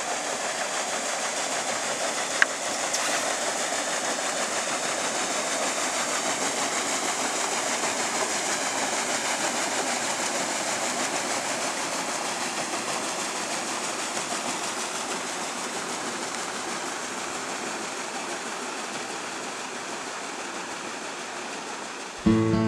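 Steam paddle steamer Hjejlen passing: a steady rushing churn from its paddle wheels and steam engine, with a fast, even pulse, slowly fading as the ship draws away. A single sharp click about two and a half seconds in.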